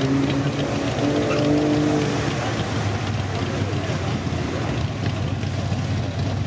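A 4x4 SUV's engine revving hard under load as it ploughs through a mud hole, with water and mud splashing around the tyres. The engine note climbs a little over the first two seconds, then turns rougher and less clear as the truck churns out onto the mud.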